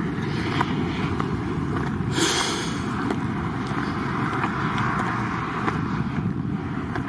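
Footsteps crunching on a stony gravel path at walking pace, under steady wind rumble on the microphone, with a brief hiss about two seconds in.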